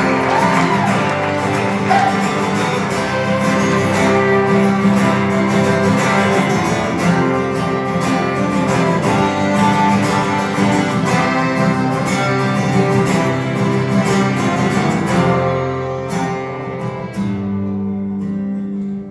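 Live acoustic band playing an instrumental passage: strummed acoustic guitar with violin and accordion, thinning out near the end as the last notes ring.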